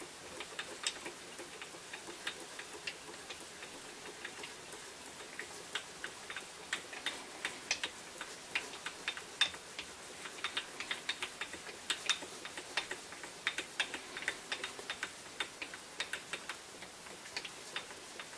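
Faint, irregular light clicks and ticks from the carriage of a Drummond B-type lathe as it is moved along the bed, carrying a dial indicator along the test bar. The clicks come thickest through the middle.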